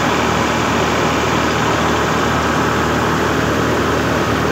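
Tractor-powered paddy thresher running steadily: a diesel tractor engine under constant load with the thresher's drum and blower, loud and unbroken.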